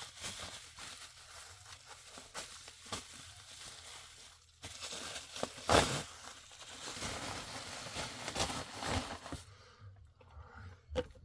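Plastic packaging crinkling and rustling as parts are unpacked by hand, with scattered small clicks and one sharp knock about six seconds in.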